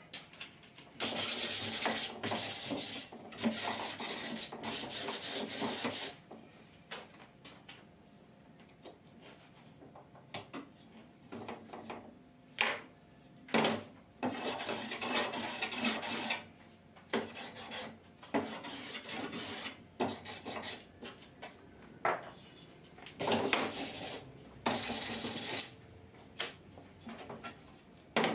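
Hand-planing and sanding the edges of a timber window sash, taking off the sharp arrises with a small plane and a sanding cork: runs of quick rasping strokes in the first few seconds, then shorter separate strokes with pauses between them.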